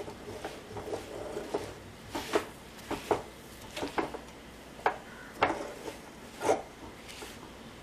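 Steel spoon scraping and knocking against a kadai while stirring roasted sesame seeds into thick jaggery syrup, an irregular series of sharp scrapes about every half second.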